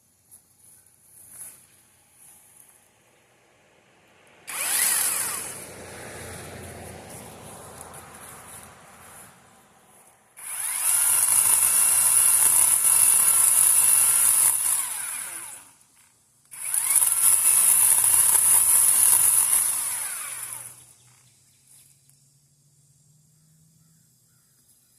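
Chainsaw cutting into a pine tree: it starts up about four seconds in and runs lower for a few seconds, then two loud full-speed runs of about five and four seconds with a short stop between.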